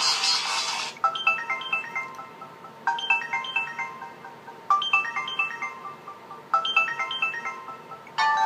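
Built-in ringtones of a Samsung Galaxy Ace GT-S5830 playing through its loudspeaker. A hissy tone cuts off about a second in, then a short descending chiming melody repeats four times about every two seconds. Near the end a different ringtone with held notes starts.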